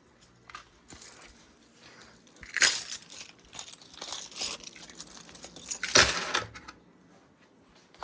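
Rattling and clicking handling noise of small hard objects, in two louder bursts about two and a half seconds in and again about six seconds in, with lighter clicks between.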